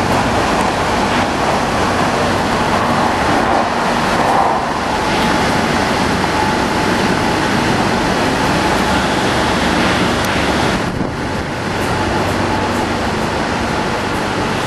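Steady, loud noise of an underground metro platform with a train standing alongside: an even rumble and hiss, with a faint steady tone running under it.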